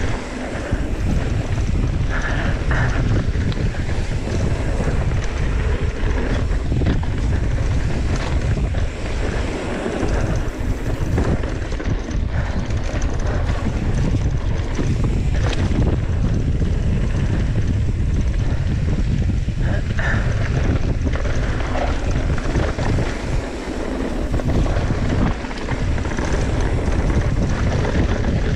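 Wind buffeting the microphone of a camera on a mountain bike descending a dirt trail at speed, over the steady rumble of tyres rolling on dirt and loose gravel. Frequent small knocks and rattles come from the bike over the rough ground.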